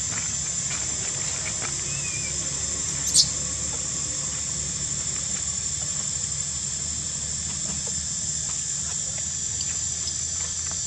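Steady high-pitched insect drone over a low outdoor rumble, with one brief, sharp, high sound about three seconds in.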